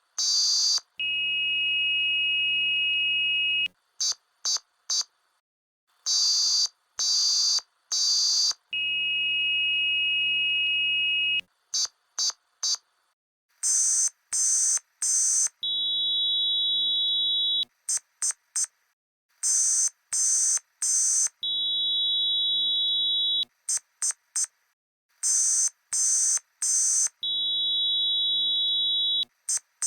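US Emergency Alert System signal sped up several times over, so everything sounds shrill and high. It repeats a short cycle: three bursts of screeching data-header warble, a steady two-tone attention beep lasting about two seconds, then three quick short bursts. The whole cycle jumps higher in pitch about halfway through as the playback speed steps up.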